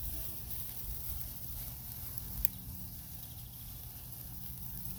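Handheld sparkler hissing steadily, with a single sharp crackle about two and a half seconds in, over a steady low hum.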